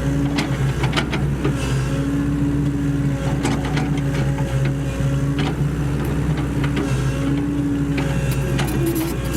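Sany SY75C excavator's diesel engine running steadily as it works, with a higher tone that comes and goes and scattered clicks and knocks.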